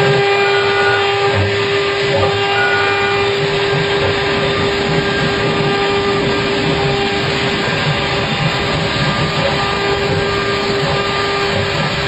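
A woodworking machine running steadily: a constant motor hum with one strong, unchanging tone over a rough mechanical noise.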